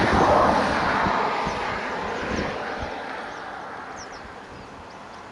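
Loud rushing rumble of a passing vehicle, with irregular low thuds, dying away steadily over several seconds as it recedes. A few faint bird chirps come in near the end.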